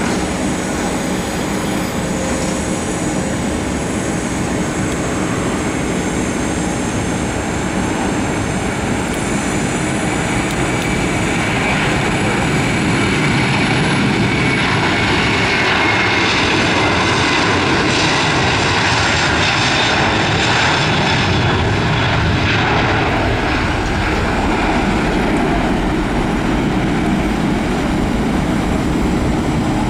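Twin-engine Airbus A330-300 jet at takeoff thrust, its General Electric CF6-80E1 turbofans running loud and steady through the takeoff roll and liftoff. The noise swells as the aircraft passes midway, with an engine whine that falls in pitch as it goes by.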